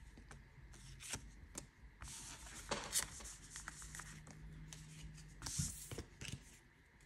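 Pokémon trading cards handled and slid together on a cloth playmat: faint rustling with a few light taps and clicks as the cards are gathered.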